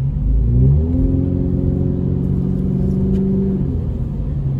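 Car engine accelerating, heard from inside the cabin: its pitch rises over the first second, holds steady, then drops away after about three and a half seconds as the throttle eases, over a steady low road rumble.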